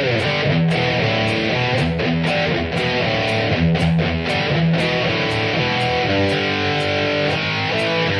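Rock music: electric guitar over a steady drum beat.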